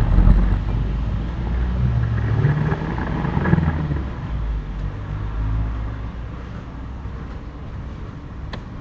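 Low engine-like rumble, loudest at the start and fading away over several seconds, with a faint knock just before the end.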